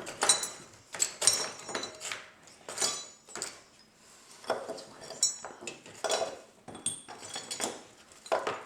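Small old metal hardware clinking and clattering in a toolbox as it is rummaged through: about a dozen irregular metal-on-metal knocks, some leaving a short high ring.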